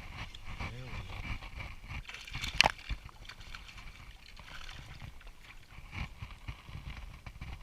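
Water sloshing with handling knocks, and one sharp click about two and a half seconds in.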